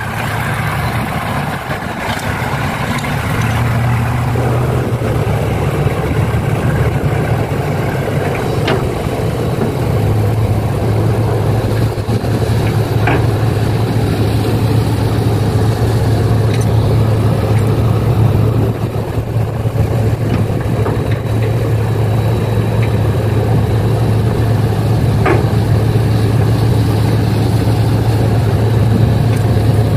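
Heavy diesel engine of earthmoving equipment running steadily with a deep hum that strengthens a few seconds in, and a few sharp knocks.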